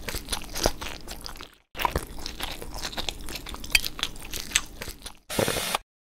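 Crunchy chewing, as of someone eating something crisp: two long runs of many small crackling bites with a brief pause about a second and a half in, then a short whoosh near the end.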